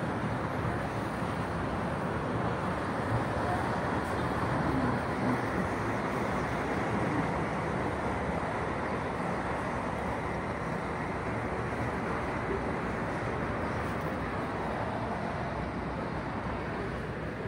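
Steady city road traffic heard from above, a continuous hum of cars and motorbikes passing on a multi-lane road with no single vehicle standing out.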